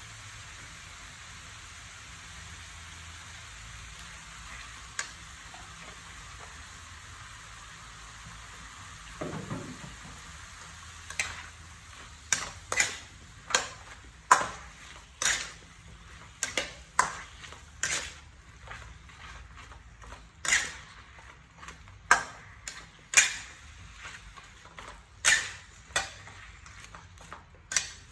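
Beef and vegetables sizzling steadily in a wok. From about eleven seconds in, a metal spatula stirs and tosses the food, scraping and striking the pan with sharp clacks about one or two a second.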